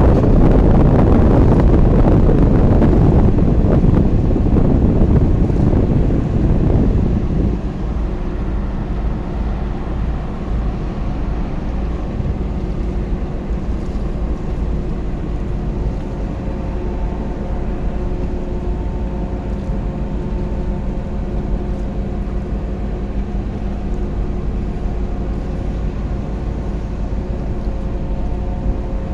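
A boat's engine running steadily, with loud wind noise on the microphone over it for the first several seconds that eases off about seven seconds in.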